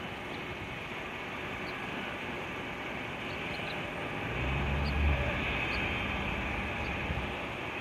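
Jet engines of a taxiing Southwest Boeing 737 airliner make a steady broad rush. A low rumble swells briefly about four and a half seconds in.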